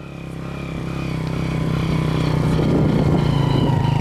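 Small engine of an old motorcycle running steadily as it is ridden, fading up over the first two seconds and then holding a constant hum.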